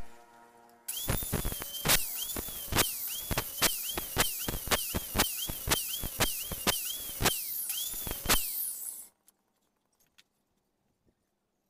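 Handheld circular saw running and cutting into a wooden board in a rapid series of short passes, making a row of closely spaced cuts; the motor's whine dips in pitch with each pass. It starts about a second in and stops suddenly about nine seconds in.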